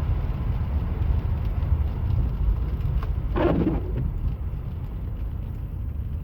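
Steady low rumble inside a car cabin while driving in the rain, engine and tyres on a wet road. A brief swishing noise a little past halfway.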